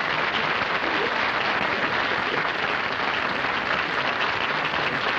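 Studio audience applauding: steady, dense clapping.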